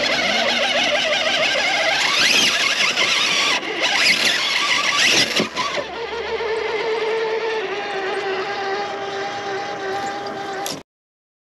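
Traxxas TRX-4 Defender RC rock crawler's electric motor and geared drivetrain whining, its pitch rising and falling with the throttle as it climbs, then holding steadier. The sound cuts off suddenly near the end.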